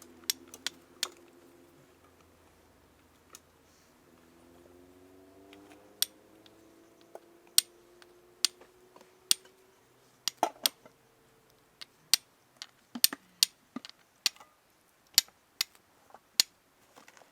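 Irregular sharp clicks, a few at the start and then more often from about six seconds on, from striking sparks into a bundle of usnea lichen tinder to light a fire. A faint low hum with slowly rising tones runs under the first half.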